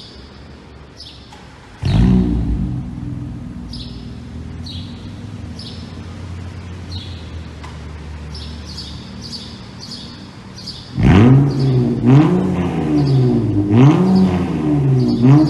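Straight-piped Acura TLX 3.5-litre V6 exhaust starting up about two seconds in and settling to a steady idle, then revved several times from about eleven seconds, the pitch rising and falling with each blip. A bird chirps over and over in the background.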